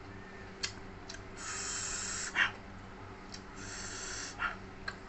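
A person sucks air in hard through the teeth to cool a mouth burning from raw chili peppers: two long hisses about two seconds apart, each ended by a short puff of breath, with a few small mouth clicks.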